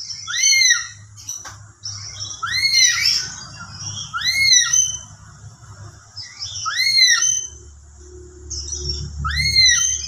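Lory (nuri) calling: five soft, shrill whistled notes that each rise and fall in an arch, spaced about two seconds apart. This is the soft, rolling lure call that draws answers from other lories.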